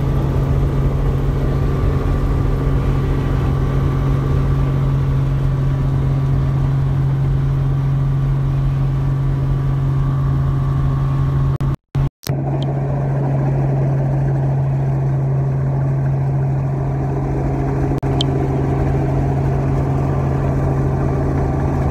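Helicopter engine and rotor drone heard from inside the cabin: a steady low hum with a strong low tone. The sound cuts out twice for an instant about twelve seconds in.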